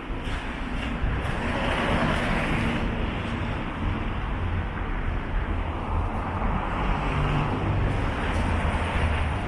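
Road traffic on a snow-covered city street: cars passing, the noise swelling twice, about two seconds in and again around seven seconds, over a low steady rumble.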